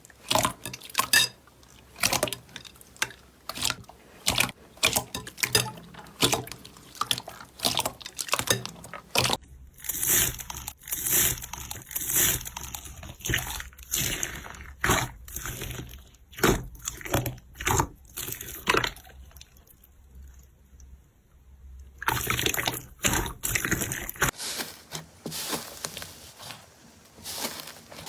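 Slime being squished and poked by hand: a rapid, uneven run of small clicks and squelches. The sound changes character abruptly about a third of the way in and again near three-quarters through.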